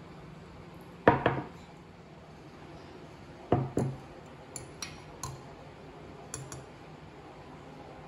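Metal spoon clinking against a glass mug while scooping melted coffee ice cream. Two loud double clinks come about a second in and again about three and a half seconds in, followed by a few lighter taps.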